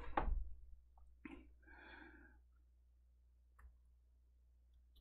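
Mostly quiet room with a steady low hum, broken by a short noise at the very start, a brief breathy vocal sound about two seconds in, and a faint click later on.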